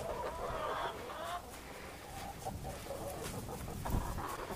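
Chickens clucking, with a short run of calls at the start, and a single dull bump about four seconds in.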